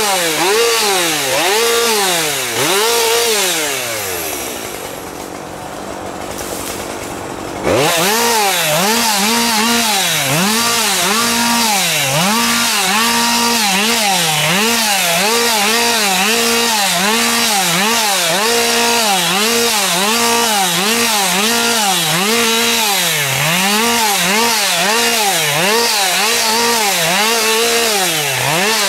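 Husqvarna 550 XP Mark II chainsaw, a 50 cc two-stroke, revved up and let off again and again, roughly once a second, as it cuts through shrubs and small stems. A few seconds in, the engine falls back toward idle. Near the middle it snaps back to full revs, and the rev-and-release rhythm carries on.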